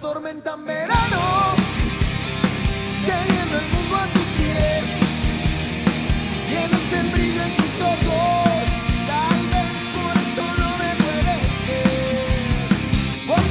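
Live rock band playing an instrumental passage on electric guitars, bass and drum kit, with a melodic line bending in pitch over the drums. The band cuts out for a moment at the start, then comes back in at full level.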